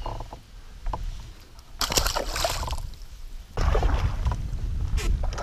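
Water sloshing and splashing around a kayak, with wind rumbling on the microphone. There is a short louder burst about two seconds in, and steadier noise from about three and a half seconds.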